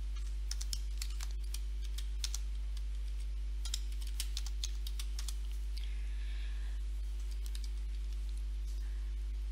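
Computer keyboard typing: a run of key clicks over the first five seconds or so, then stopping, over a steady low hum.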